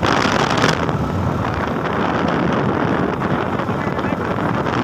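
Wind buffeting the phone's microphone on a moving motorcycle: a steady rush of wind and road noise, loudest in the first second.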